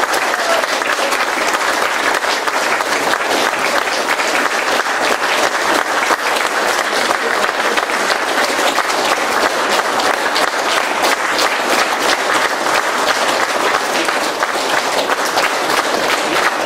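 Audience applauding steadily, many hands clapping at once after a choir's final song.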